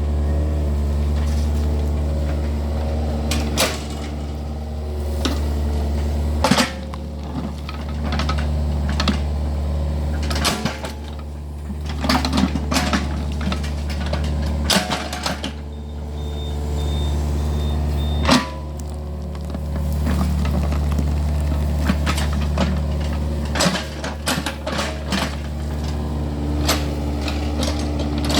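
Excavator diesel engine running steadily, its note and load shifting every few seconds as it works, with scattered clanks and knocks over it.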